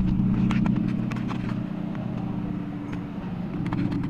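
Small car's engine idling steadily, heard with the driver's door open, with a few light clicks and knocks from the door and its handling.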